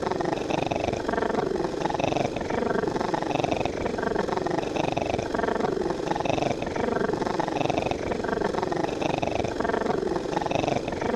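A looped sound effect with a growl-like, falling pitch, repeating about once a second without pause.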